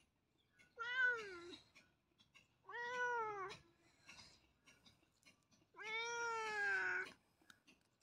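A cat meowing three times, each a drawn-out call of about a second that rises and falls in pitch, the last the longest; faint scattered clicks between them.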